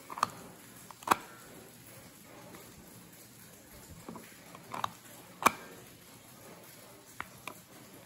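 Blue Trodat Printy 3912 self-inking plastic stamp pressed onto paper twice. Each stamping is a pair of plastic clacks under a second apart, the second one sharper and louder. Two light ticks come near the end.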